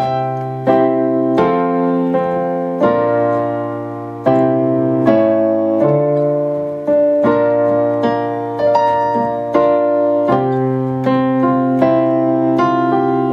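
Piano playing a slow progression of block chords, struck about once a second, each chord held and ringing into the next: the F major, B-flat major, C major progression being played through as a whole.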